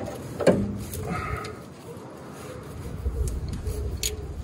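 A socket ratchet being fitted to and worked on a rusted tow-bar bolt, making a few scattered metal clicks and knocks with the sharpest about half a second in. A low rumble comes in near the end.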